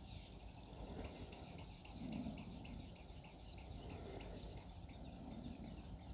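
Thick frozen-fruit smoothie pouring from a portable blender vessel into a glass: faint, soft gurgling of a slow, heavy stream, with a slightly louder swell about two seconds in.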